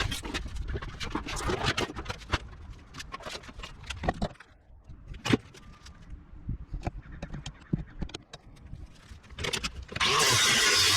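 Scattered clicks, knocks and clatter of metal parts being handled. A power tool starts running about ten seconds in.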